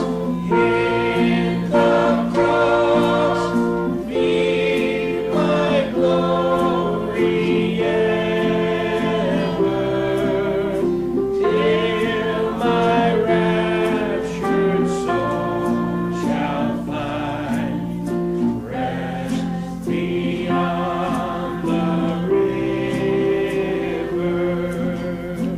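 A choir singing a gospel hymn in sustained chords that change every second or two.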